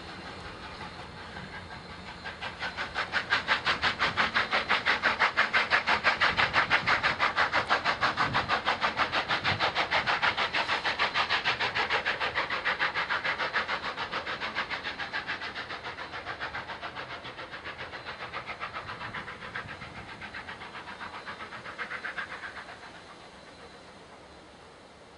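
Union Pacific 844, a 4-8-4 steam locomotive, working with a fast, even run of exhaust chuffs. The chuffing swells a few seconds in and fades away near the end.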